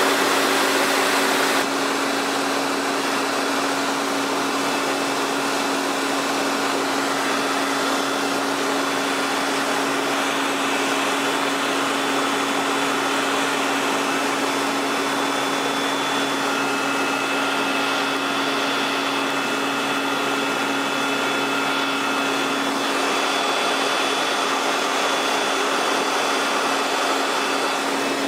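Helicopter in flight heard from inside the cabin: a steady engine and rotor drone with a constant low hum and faint high whines.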